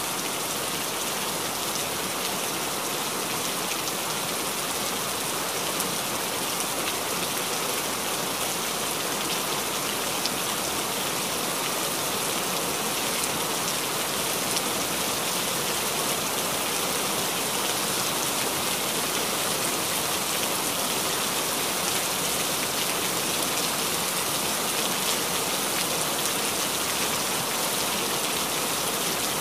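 Steady rain: an even hiss with fine patter that holds at one level throughout.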